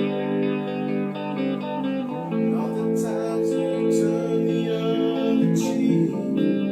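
A band playing a song, with guitar to the fore and sustained chords.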